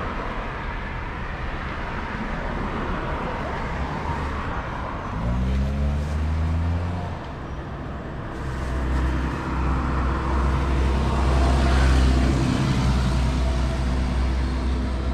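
Road traffic: motor vehicle engines going by close at hand. About five seconds in, an engine revs up with a rising pitch. From about nine seconds a heavier engine runs with a steady low rumble, loudest around twelve seconds.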